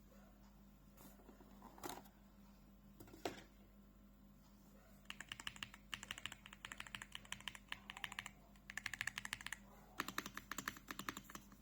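VGN V87 mechanical keyboard with Dynamic Silver switches being typed on: a few single keystrokes, then fast runs of typing from about five seconds in.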